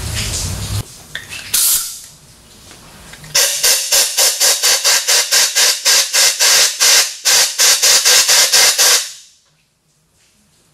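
Compressed air hissing in quick, even pulses, about four or five a second, for some five seconds, then stopping abruptly. There is a single short, sharp hiss of air a second or so before.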